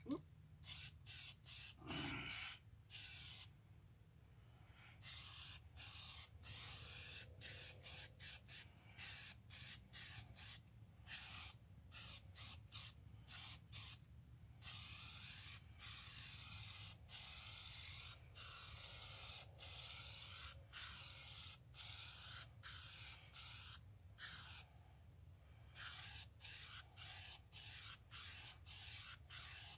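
Aerosol spray-paint can hissing in many short bursts, with a few sprays held for a second or two, as paint goes onto a steel tractor wheel centre.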